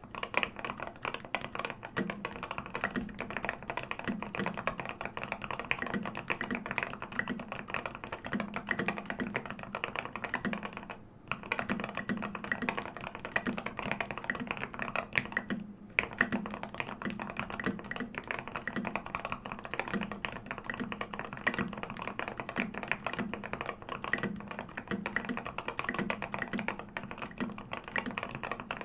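Continuous fast typing on a Lin Special Whale custom mechanical keyboard with lubed Gateron Ink Black 70 g linear switches, SA keycaps, an aluminium plate and a brass weight. The key presses run at a steady pace with two brief breaks, one a little before halfway and one a few seconds later.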